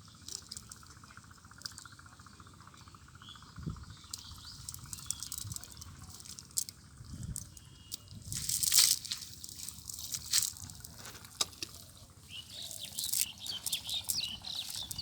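Water splashing and dripping with scattered small clicks, with one louder splash about nine seconds in; birds chirp near the end.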